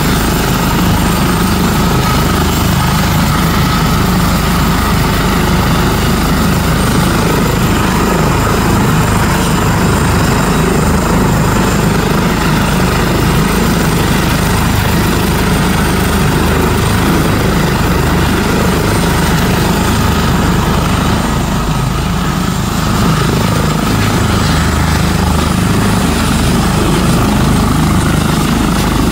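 Air ambulance helicopter running on the ground at takeoff power with its main rotor spinning: a steady rotor beat with a high-pitched whine held above it.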